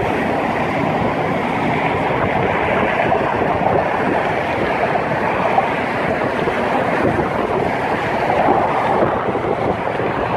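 Steady rushing noise of wind buffeting the microphone, mixed with the sound of passing road traffic.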